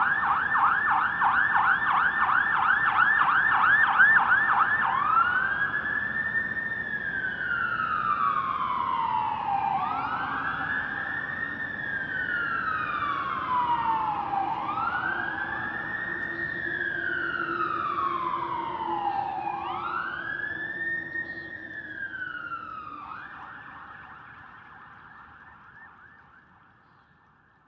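Electronic emergency-vehicle siren: a rapid yelp, several sweeps a second, then a slow wail that rises quickly and falls away four times, about every five seconds. Near the end it switches back to the rapid yelp and fades out.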